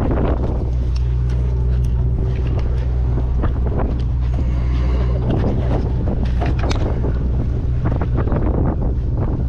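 Fishing boat's engine running with a steady low hum, under gusty wind buffeting the microphone.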